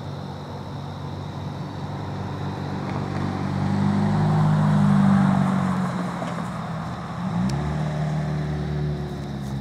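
Motor vehicle engines on the road: a low engine drone swells to its loudest about halfway through and fades, then a second engine note rises in pitch a little past two-thirds of the way in, like a vehicle pulling away.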